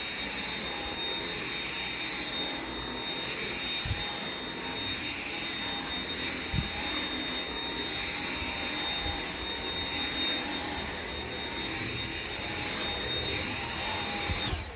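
Dyson V7 cordless stick vacuum with its motorhead cleaner head, running on carpet: a steady high whine over rushing air, with a few soft knocks. It cuts off abruptly near the end.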